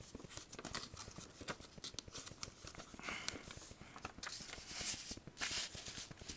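Sheet of paper being handled and folded by hand into a paper airplane: light rustling with scattered crisp crinkles and taps as it is creased.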